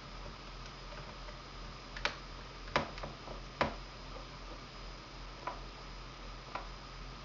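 A handful of light, sharp clicks and taps from a small screwdriver driving a bezel screw back into a laptop's plastic screen lid. The louder clicks come between about two and four seconds in, with two fainter ones later.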